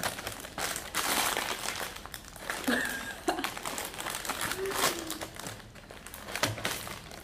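Crinkling and rustling of a plastic snack wrapper being handled, in short irregular bursts.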